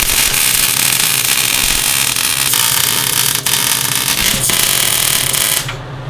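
Wire-feed welder arc crackling and hissing steadily as a sprocket is tack-welded to the engine shaft, cutting off sharply about five and a half seconds in.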